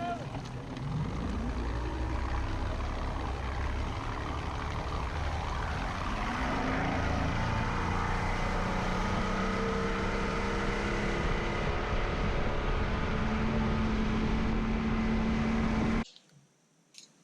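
An engine running steadily at speed under a heavy rushing noise, its pitch drifting slowly; the sound cuts off abruptly near the end.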